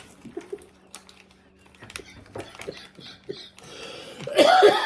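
Soft scattered clicks and small vocal sounds, then, near the end, a sudden loud outburst from a person's voice.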